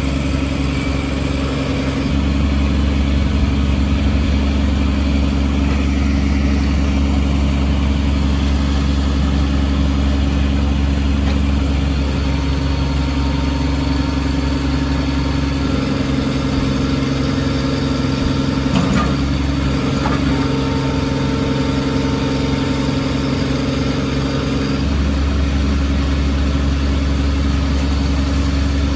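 26 HP Kubota diesel engine of a Kubota B26 tractor loader backhoe running steadily. Its note shifts a few times, and a higher whine joins in for several seconds in the second half.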